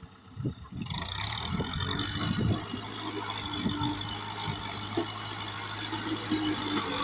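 Kubota tractor's diesel engine running steadily under work. It gets louder about a second in, with a constant low hum and a noisy mechanical clatter over it.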